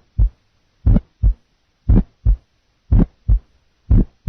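Recorded heart sounds at about one beat a second, each beat a pair of low thumps (first and second heart sounds), demonstrating an aortic ejection sound: an early systolic click just after the first sound, typical of a stenotic or bicuspid aortic valve or a dilated aortic root.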